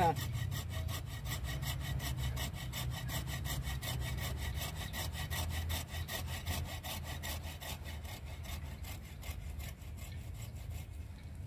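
Hand pruning saw cutting through a branch of a Wrightia religiosa (mai chiếu thủy) bonsai in quick, even strokes, growing fainter near the end.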